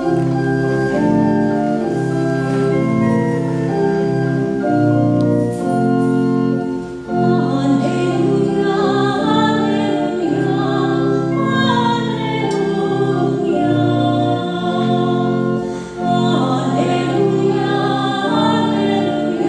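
Organ playing sustained chords, with singing joining about seven seconds in. This is the Gospel acclamation sung at Mass before the Gospel reading.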